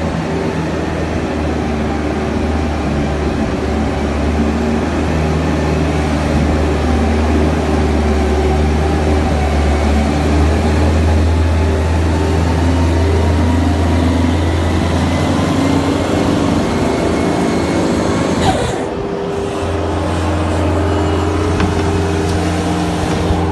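Bobcat skid-steer loader's engine running steadily under work, with a faint whine slowly rising in pitch. About three-quarters of the way through, the low drone drops away for about a second with a knock, then comes back.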